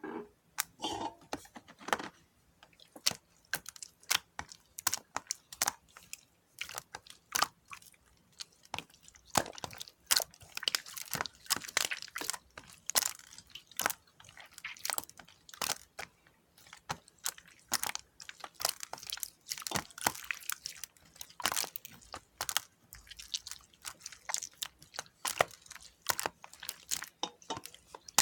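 Clear slime mixed with small PP plastic beads being squeezed and pressed by hand, giving an irregular run of crunchy clicks and crackles.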